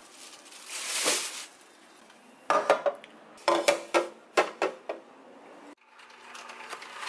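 Hard plastic juicer cups knocking and clattering against a counter as they are handled and set down, in three quick clusters of knocks. A brief rustle comes about a second in.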